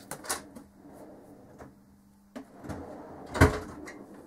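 Handling of a flexible plastic tumble-dryer hose on a workbench: a few clicks, then rustling and scraping, with one louder knock about three and a half seconds in.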